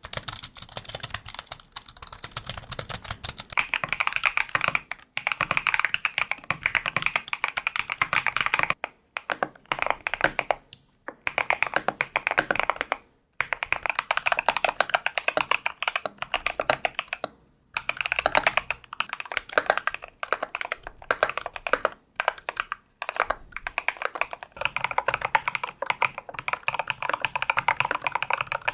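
Fast typing on a custom mechanical keyboard: dense, rapid keystroke clacks in runs of a few seconds, broken by brief pauses.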